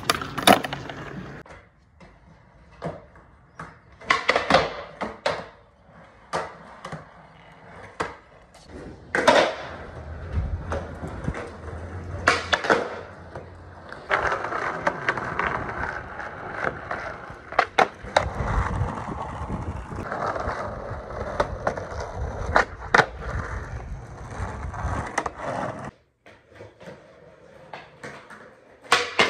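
Skateboard riding on concrete: wheels rolling with a rumble, broken by repeated sharp clacks and slaps of the board popping and landing during trick attempts.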